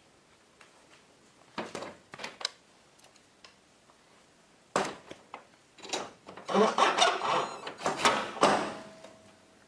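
Clicks and knocks as the garage door's plastic bolt-lock housing is handled against the steel track, one sharp knock about five seconds in, then a cordless drill driving the lock's small Phillips-head screws for about two seconds with grinding and rattling.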